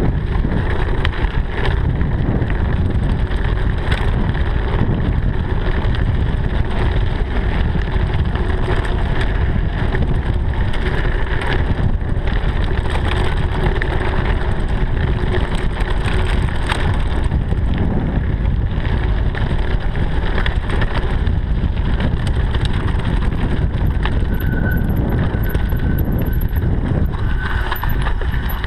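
Mountain bike ridden along a trail: a heavy rush of wind on the microphone, with rattles and knocks from the bike over rough ground. There are a few short high squeals near the end.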